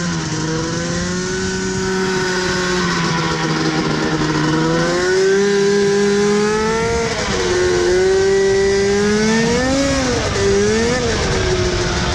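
The 100 hp swapped-in engine of a John Deere Gator UTV running through a short mocked-up exhaust while the vehicle is driven. The engine note rises and falls several times as the throttle changes, with two quick dips and pick-ups near the end.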